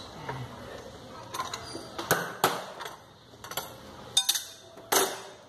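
Steel fan clutch wrenches clinking and knocking against the fan clutch, water pump pulley and each other: half a dozen sharp metallic knocks, most of them in the second half.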